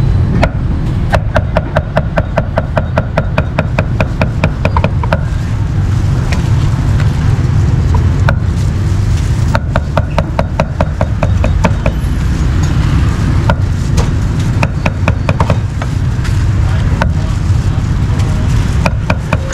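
Cleaver chopping meat on a wooden board in rapid, even runs of about five strokes a second, stopping and starting several times. Under it runs a steady low rumble of vehicles.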